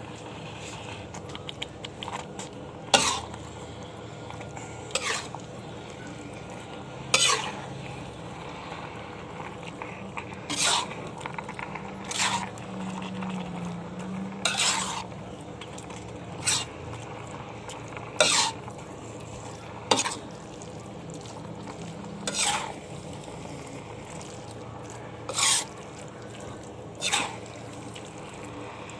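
A spatula stirring a spicy shredded filling in a metal pan. It knocks and scrapes against the pan in sharp clatters about every two seconds, a dozen times in all, over a steady low background.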